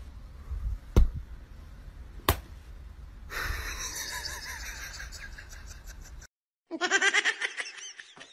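Two sharp taps about one and two seconds in, then a person laughing, ending in a run of quick, rhythmic bursts of laughter.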